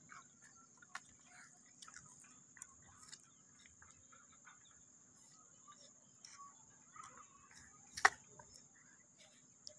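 Faint background ambience with scattered small ticks and one sharp click about eight seconds in.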